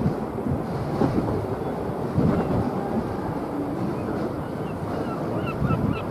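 Wind buffeting the microphone over the steady wash of a calm sea, with a few short high chirps near the end.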